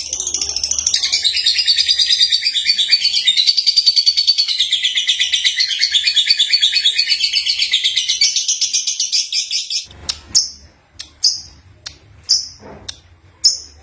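Young lovebird singing: a long, rapid, high-pitched chattering warble that stops abruptly about ten seconds in. It gives way to a series of separate short chirps.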